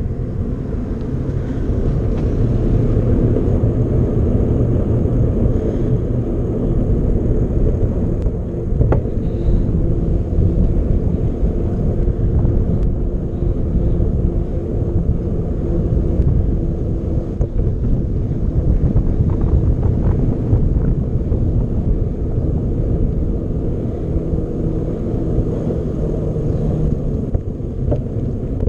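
Steady wind buffeting the microphone over the rumble of a mountain bike rolling along at speed.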